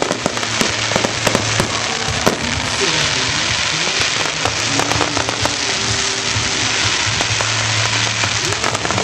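Aerial fireworks display going off overhead: many sharp pops and crackles in quick, irregular succession over a dense crackling hiss.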